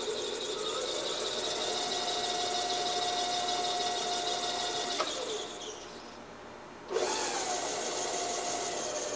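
Welding positioner's electric motor and gear drive running with a steady whine as the faceplate turns. About five seconds in it clicks off and winds down, then about two seconds later it starts up again abruptly and runs on.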